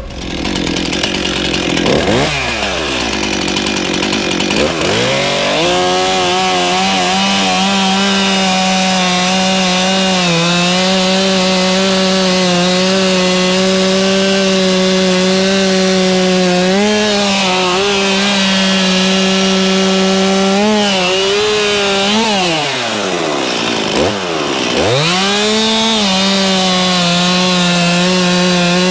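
Stihl MS 261 two-stroke chainsaw revved a couple of times, then held at full throttle sawing through a log. The engine note sags briefly under load now and then, drops right down once near the end, and revs back up.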